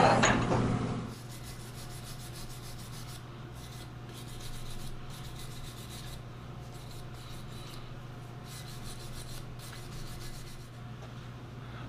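Small wire brush scrubbing a metal spindle held in a lathe chuck, back-and-forth rubbing strokes. The lathe's running noise dies away in the first second, and a steady low hum runs under the brushing.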